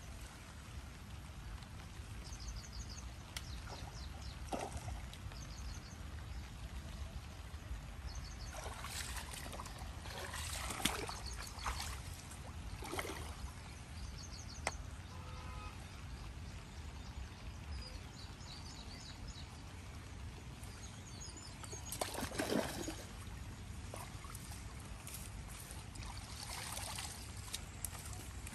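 Running water trickling and sloshing under a steady low rumble, with several louder splashes and short high chirps repeated now and then.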